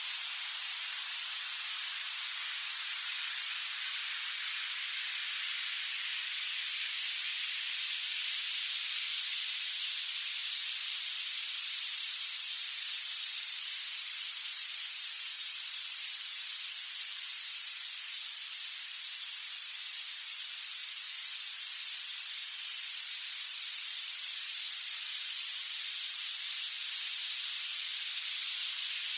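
Violet noise: a steady, bright hiss with its energy piled into the highest pitches and almost nothing in the low end.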